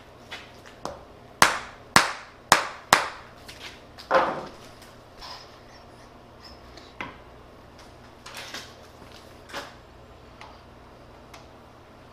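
Metal-on-metal knocks from hydraulic cylinder parts and hand tools being handled during reassembly. There are four sharp, ringing knocks about half a second apart, then a softer clank and a few lighter taps.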